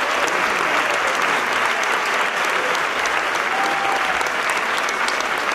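Theatre audience applauding steadily at the end of the performance.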